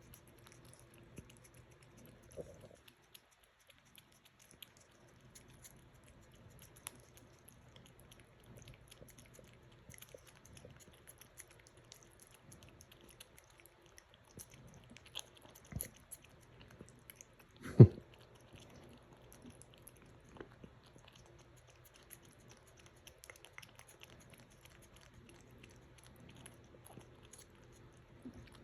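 A cat chewing and crunching, with many small crisp bites throughout. A single loud thump stands out about two-thirds of the way through, over a faint steady hum.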